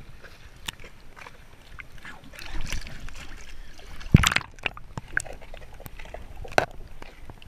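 Water sloshing and splashing at the surface, with scattered small clicks and drips, and one loud splash about four seconds in as the water is churned during a snook release.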